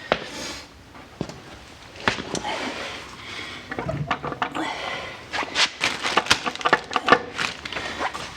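Metal clinks, knocks and short scrapes of a manual transmission being worked onto the engine on a jack, with the taps coming thick and fast in the second half.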